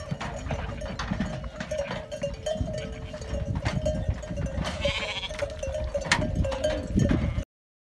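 Flock of sheep with bells clanking and a bleat about five seconds in; the sound cuts off abruptly just before the end.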